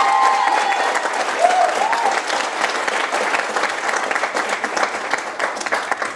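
Audience applauding, with a few short cheers from voices in the first two seconds; the clapping thins out near the end.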